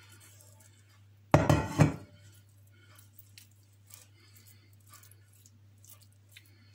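A short clatter of kitchen dishes about a second and a half in, with two loud knocks close together, as crockery is handled and set down. Faint light clicks follow.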